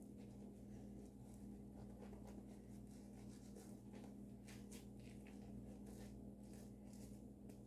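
Faint scraping of a safety razor with a Dorco blade shaving through lather on skin: a series of short strokes, more of them from about four seconds in, over a low steady hum.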